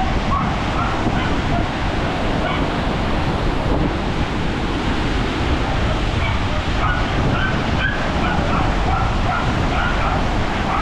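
Loud, steady rush of fast-flowing water released under pressure from a dam at a hydroelectric plant, a dense noise without let-up.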